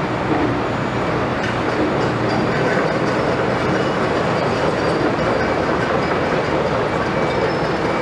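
Steady mechanical din of heavy construction machinery: the diesel engines of crawler cranes and drilling rigs running together, with faint high-pitched tones now and then.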